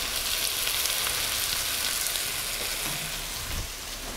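Diced vegetables and salami frying in a cast-iron Dutch oven: a steady sizzle with faint crackles.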